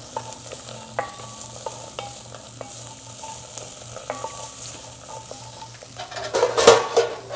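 A wooden spoon stirring diced vegetables sautéing in an enameled cast-iron pot: a steady sizzle, with the spoon knocking and scraping against the pot about once or twice a second. A louder clatter of knocks comes near the end.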